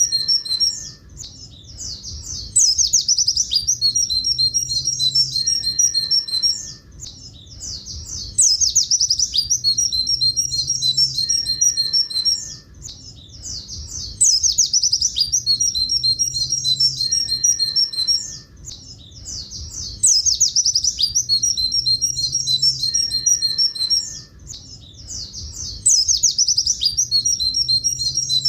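Pleci buxtoni white-eye song: long phrases of rapid, high 'tulit tulit' notes, each phrase a few seconds long with a short quieter gap, and the same pattern repeating about every six seconds as a loop.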